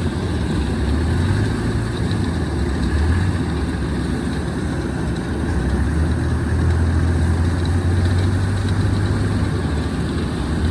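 An engine running steadily with a heavy low rumble and no let-up.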